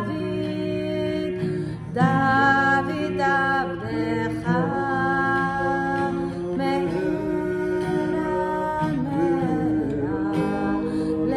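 A woman and a man singing a slow Hebrew liturgical song together, with long held notes, accompanied by an acoustic guitar.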